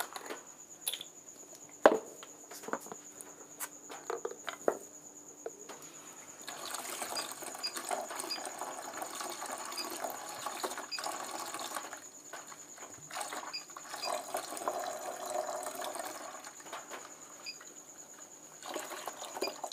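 Rose perfume oil poured from a plastic bottle into a plastic bucket, a steady liquid pour that begins about six seconds in and runs for about ten seconds. Before it come a few clicks and knocks as the bottle is handled and opened.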